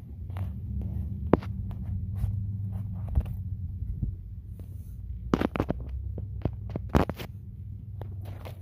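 Scattered clicks and knocks of metal parts being handled in an engine bay as an engine block heater is worked into its hole in the engine block. There is one sharp knock about a second in and a few louder ones in the second half, over a steady low hum.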